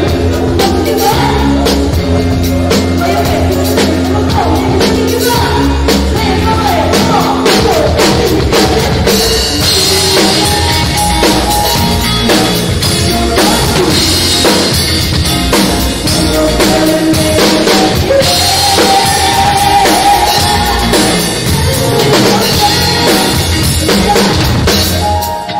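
Live band playing a pop-funk song, with a drum kit driving the beat and a singer's voice on top.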